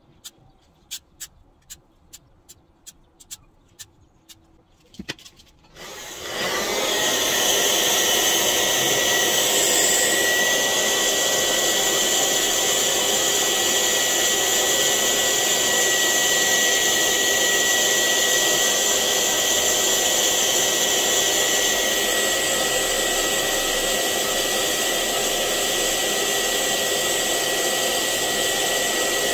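A series of light clicks, then a hand-held hair dryer switches on about six seconds in and runs steadily with a constant high whine.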